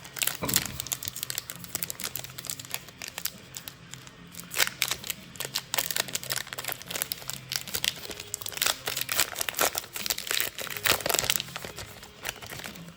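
Crinkling and rustling of the plastic and foil card packaging and of trading cards being handled, in many irregular crackles.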